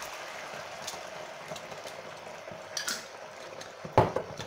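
Oil, sugar and honey glaze with chili sauce just added, bubbling steadily in a nonstick frying pan. A single sharp knock sounds about four seconds in.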